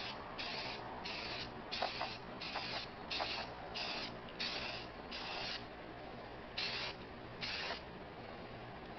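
Aerosol spray paint can hissing in short repeated bursts, roughly one every 0.7 seconds, as the underside of a Coleman stove part is sprayed. The bursts stop about eight seconds in.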